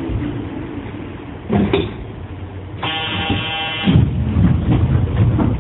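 A station door buzzer sounds for about a second in the middle, as a harsh steady buzz. A single knock comes shortly before it, and a low uneven rumble with light knocks follows it.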